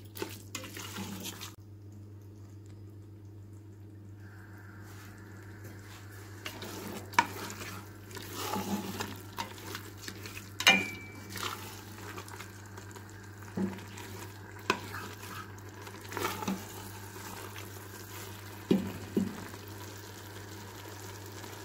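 A spoon stirring minced beef and potato cubes in a metal cooking pot, with scattered scrapes and knocks against the pot over a steady low hum.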